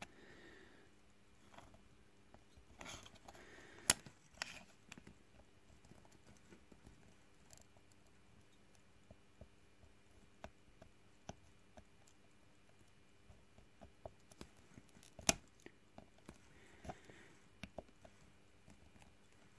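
Mostly quiet, with faint scattered ticks and small crackles and a few sharper clicks, the loudest about 4 seconds in and another near 15 seconds, as a fine-tipped soldering iron is worked between the pins of a surface-mount chip to clear a solder bridge.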